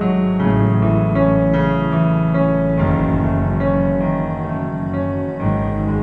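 Ambient relaxation music: sustained keyboard chords that change every two to three seconds.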